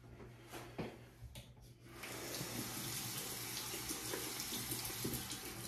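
Tap running into a bathroom sink, starting about two seconds in after a few faint clicks.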